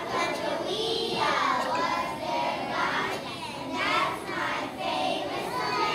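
A group of young children singing together as a choir.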